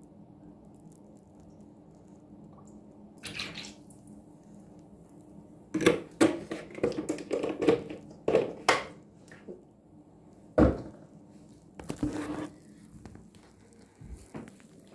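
Soapy water splashing and dripping into a plastic basin, in a short burst about three seconds in, a dense run from about six to nine and a half seconds, and another burst around twelve seconds. There is one sharp knock about ten and a half seconds in.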